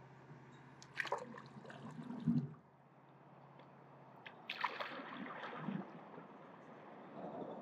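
Stand-up paddleboard paddle strokes in lake water: the blade dips, pulls through and lifts out with splashing and gurgling, twice about three seconds apart, then the start of a third near the end.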